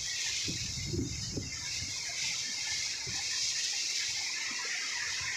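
Typhoon wind and rain: a steady hiss, with gusts buffeting the microphone in the first second or so.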